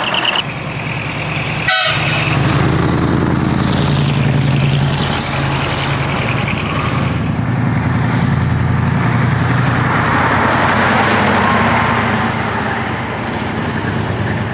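Big diesel trucks, decorated dekotora, running as they drive out, with horn toots over the engine noise.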